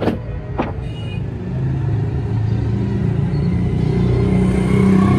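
Two sharp hammer knocks on the wooden cart's wheel fitting at the start, then a steady low engine rumble of motor traffic that grows slightly louder.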